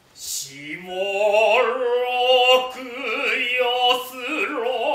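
A single male voice chanting Noh utai: a hiss, then a low drawn-out note about half a second in that climbs and is held with a heavy, wavering vibrato.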